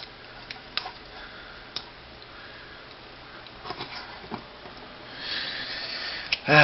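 Light, scattered clicks and taps of plastic model-kit parts being handled, with a breathy sniff near the end.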